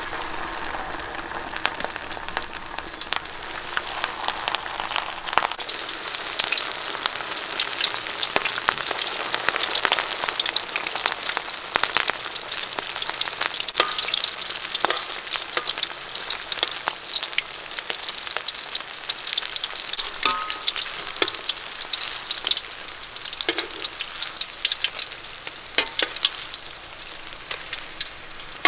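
Coated chicken drumsticks deep-frying in hot oil in a metal wok: a dense sizzle thick with crackling pops, starting abruptly as the chicken goes into the oil.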